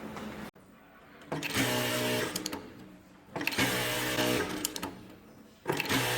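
Computerized high-speed lockstitch industrial sewing machine stitching in two short bursts of about two seconds each, each starting sharply and winding down with a few clicks.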